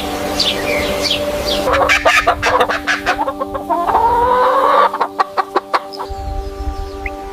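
Chickens clucking, with a drawn-out rising call in the middle and a run of short sharp clucks after it, over background music with sustained tones.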